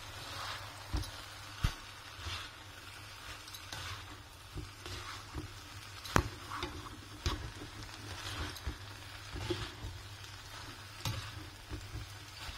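Fried rice with peas and carrots being stir-fried in a nonstick pan: light sizzling, with the plastic slotted spatula scraping and tapping against the pan as the rice is turned, and a few sharper knocks among them.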